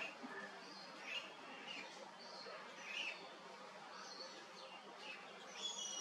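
Short, high bird chirps, repeated one or two a second, faint over a low steady background hum.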